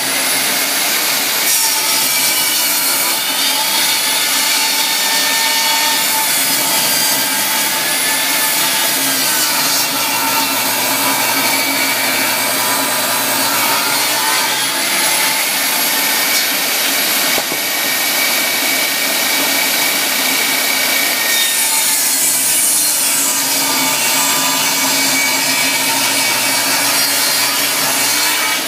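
Table saw running continuously while a 2x softwood board is ripped lengthwise in repeated passes. The saw's whine sags and recovers several times as the blade takes each cut.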